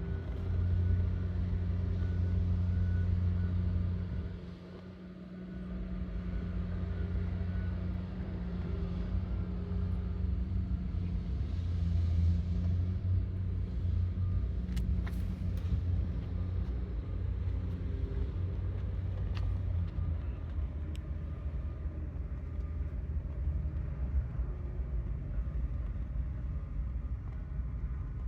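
Machinery running steadily with a low, humming rumble. It drops briefly about four seconds in, then carries on, with a few faint ticks later on.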